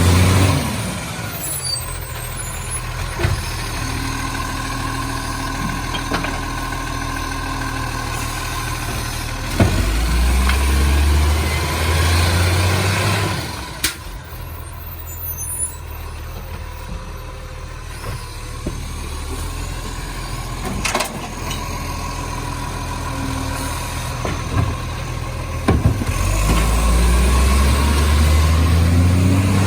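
Recycling garbage truck's diesel engine idling, then revving up in strong low surges about ten seconds in and again near the end, with short air-brake hisses between.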